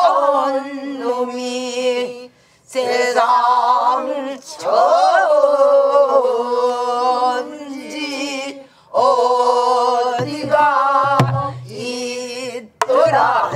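A woman singing pansori in long, drawn-out phrases with wavering held notes and sliding pitch, taking short breaths between them. A few strokes on the buk barrel drum come in near the end.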